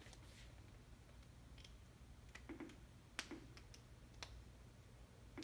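Geiger counter giving a few faint, irregularly spaced clicks, each a detected beta particle from a strontium-90 source: a low count rate at 36 cm. The loudest click comes about three seconds in, over a steady low hum.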